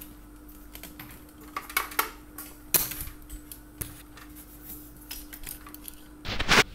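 Handling noise from a hand-held camera being moved around inside a wooden incubator cabinet: scattered light clicks and knocks over a faint steady hum, with a louder brushing rub near the end.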